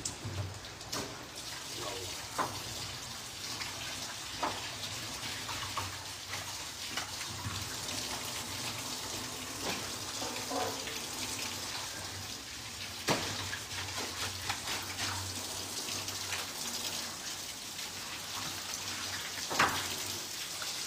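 Steady running water from a tap or hose, with scattered knocks and clatter of wet fish and metal.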